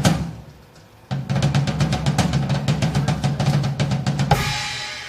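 Live drum kit: a hit that dies away, then a fast drum roll of about three seconds ending in a cymbal crash that rings and fades.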